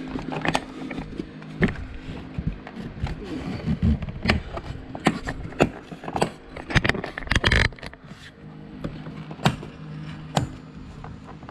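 Plastic cowl trim panel on a Jeep Gladiator being snapped back into place: about a dozen irregular sharp clicks and knocks as its push-in clips seat, with a steady low hum underneath.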